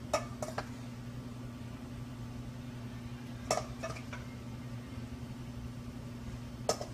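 Steady low hum of running kitchen equipment, with a few brief light taps and knocks near the start, around the middle and near the end, as chicken is spread over a pizza in its pan.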